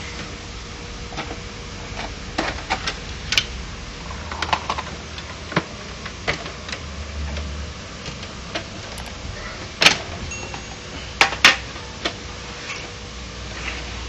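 Scattered plastic clicks and knocks as the casing of an HP LaserJet 1010 laser printer is handled and its covers are opened for disassembly. The loudest snaps come about ten seconds in and twice more about a second later, over a faint steady hum.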